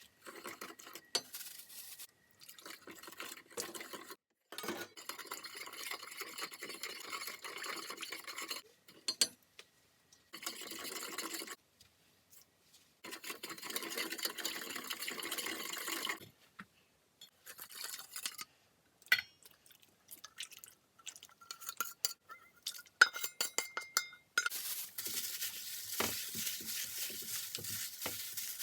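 Kitchen cooking sounds: utensils clinking against dishes and pans and stirring, in several short stretches broken by sudden silences.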